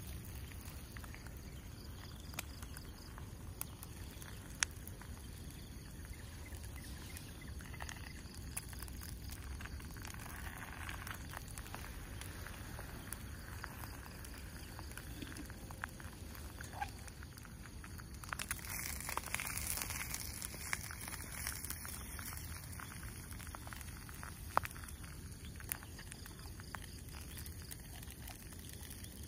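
Portable gas canister stove burning under a small frying pan of eggs and bread, with faint sizzling and scattered small clicks. The hiss swells for a few seconds about two-thirds of the way through.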